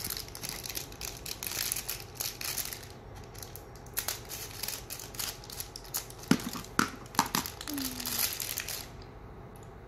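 Crinkly plastic foil wrapping crackling as it is cut with small scissors and pulled apart by hand, with a brief lull a few seconds in.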